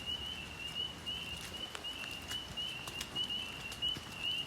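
Spring peepers calling: a steady chorus of short, high, slightly rising peeps, about three or four a second, with a few sharp ticks scattered through.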